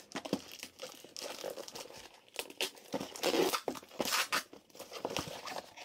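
A cardboard mailing box being torn open by hand: irregular scratchy tearing and crinkling of tape and cardboard, loudest about three and four seconds in.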